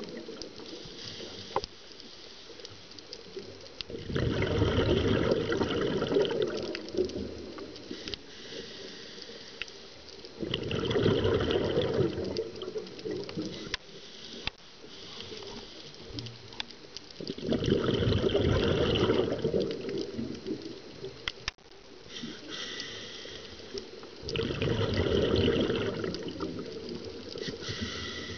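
Scuba diver breathing through a regulator underwater: four bursts of exhaled bubbles, each about two seconds long and roughly seven seconds apart, with a quieter hiss between them.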